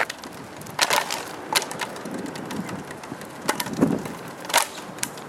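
A dog with no teeth gnawing on a bone: scraping and crunching, with four sharp clacks spread through it.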